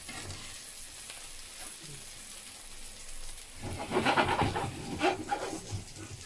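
Potato and egg omelette frying in a non-stick pan with a steady sizzle. From about four seconds in, a slotted spatula scrapes and knocks against the pan for a second or so.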